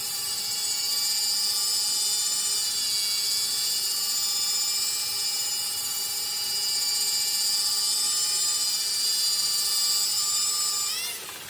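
Corded electric drill running at a steady high whine, driving a blue 3000-grit polishing disc on a flexible attachment over wet dark emperador marble. Near the end the motor is switched off and winds down, its pitch falling.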